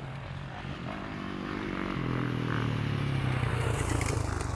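Motocross bike's engine running at a fairly steady note, growing steadily louder as the bike approaches through the ruts.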